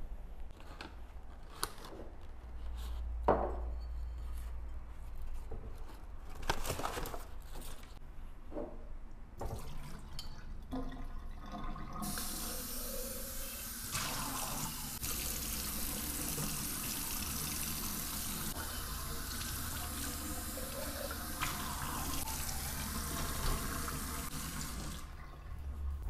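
Kitchen mixer tap running into a stainless steel sink while a glass vase is rinsed under it: a steady splashing rush that starts about halfway through and stops shortly before the end. Before that, a few light knocks and clinks of things being handled.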